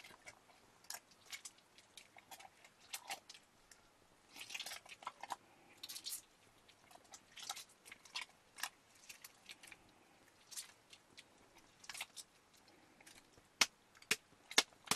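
Hands squeezing and kneading a lump of fresh butter in a pot of water: faint, irregular wet squelches and small splashes, with a run of sharper, louder clicks near the end.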